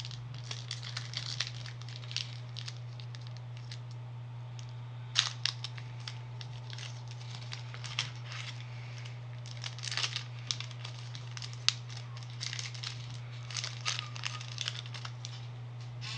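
A Pokémon booster pack's foil wrapper being torn open and handled: irregular crinkling crackles with a few sharper snaps, over a steady low hum.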